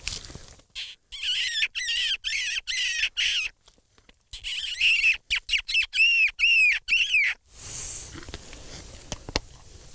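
Mouth squeaking on the back of the hand to call in a fox, mimicking a rabbit in distress: two runs of short, high-pitched squeals, the second run's squeals each rising and falling in pitch.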